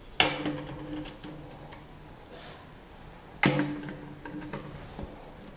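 Screwdriver driving screws back into the plastic cover of a copier developer unit: two sharp knocks about three seconds apart, each ringing briefly, with light ticks and clicks between.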